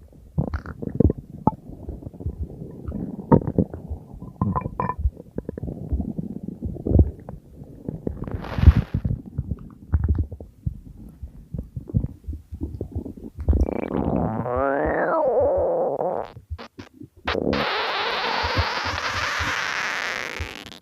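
Human stomach growling: a long run of irregular low gurgles and pops, then a drawn-out warbling growl that rises and falls in pitch. Near the end comes a steady hissing rush.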